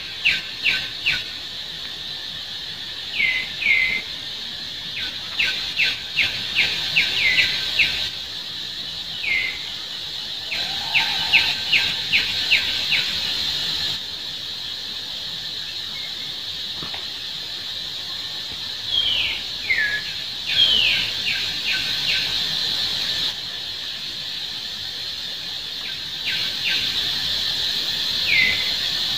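Outdoor wildlife ambience: a steady high insect drone, with clusters of short, sharp bird chirps and a few quick falling calls scattered over it.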